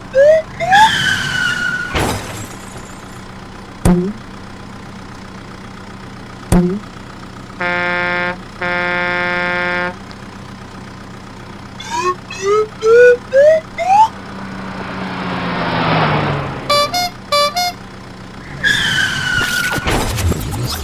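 Cartoon sound effects over a steady low hum. Quick rising whistle-like chirps come near the start and again about twelve seconds in. A vehicle horn honks twice, short then long, about eight seconds in. A rising whoosh and a run of fast beeps follow.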